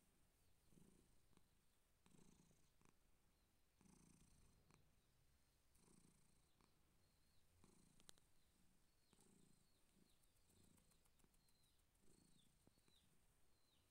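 Persian cat purring faintly, in soft pulses about once a second.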